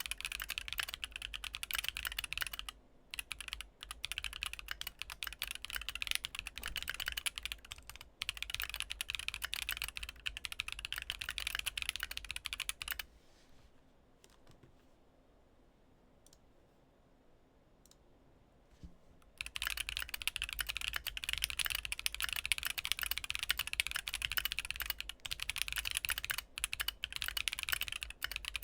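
Typing on a Keychron Q2 mechanical keyboard with MMD Princess v3 tactile switches and ASA-profile keycaps: a steady run of keystrokes at about 85 words per minute, a pause of about six seconds a little before halfway, then faster typing at about 120 words per minute.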